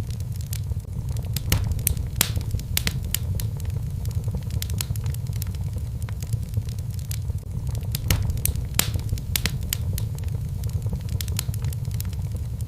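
Fire in a fireplace crackling, with frequent sharp, irregular pops and snaps over a steady low rumble.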